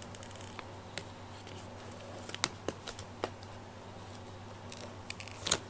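Quiet handling noises as fingers work through a faux-fur toy: a few small clicks and ticks, spaced irregularly, over a steady low hum.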